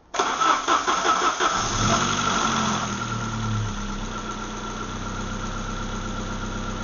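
Saab 900 Turbo's turbocharged four-cylinder engine cranked by the starter motor, catching after about a second and a half and settling into a steady idle.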